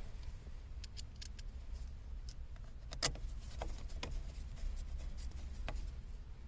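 Scattered light clicks and taps of small parts and hand tools being handled during car steering-column reassembly, with one sharper click about three seconds in, over a faint low hum.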